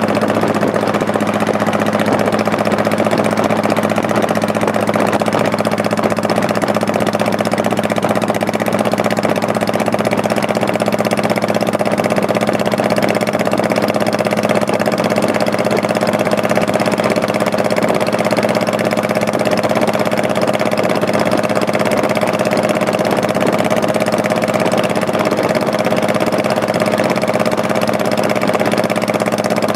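Honda Shadow Spirit 1100's V-twin engine running steadily at an unchanging pitch while the motorcycle is ridden at constant speed, with a steady rush of wind noise.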